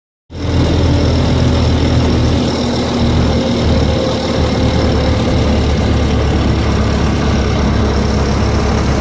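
1908 Jackson veteran car's engine running steadily as the car drives along, heard from the driver's seat.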